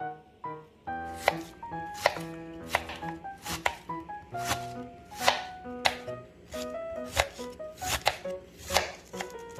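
Kitchen knife finely slicing a wedge of white cabbage on a cutting board: crisp, regular cuts through the leaves and down onto the board, starting about a second in, with background music underneath.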